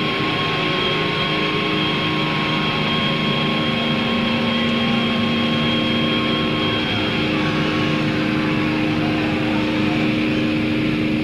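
Electric guitar amplifiers left droning with held feedback tones over the noise of a large cheering crowd. The two higher tones cut out about seven seconds in, while the lower ones keep sounding.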